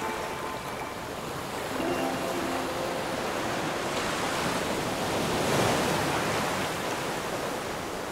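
Sea waves washing: a steady rush of water that swells to its loudest about five to six seconds in.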